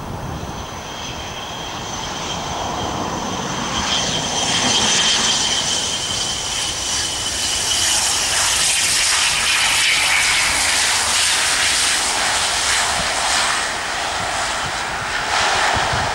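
ATR 72 twin-turboprop airliner landing. Its engines and propellers give a steady high whine that sinks slowly in pitch on approach. The noise grows louder and rougher around touchdown about halfway through, then eases slightly as it rolls out along the runway.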